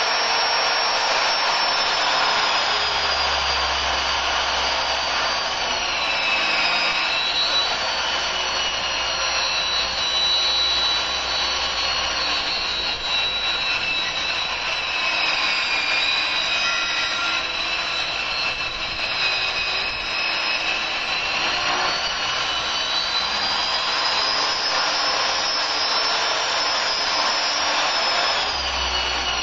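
Corded power tool's motor running continuously as it cuts into wooden window trim, its high whine dipping in pitch now and then and coming back up.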